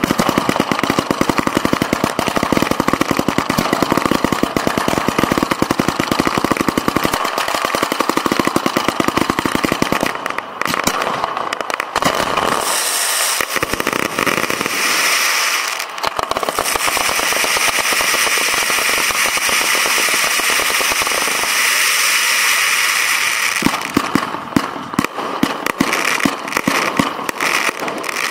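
Professional display fireworks firing at close range: a rapid barrage of many shots a second for about the first ten seconds, then a dense hissing crackle for about ten seconds, then rapid shots again near the end.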